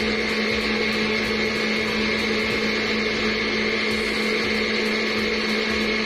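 Electric stand mixer with a whisk attachment running at a steady speed, a continuous motor hum, mixing chocolate cake batter.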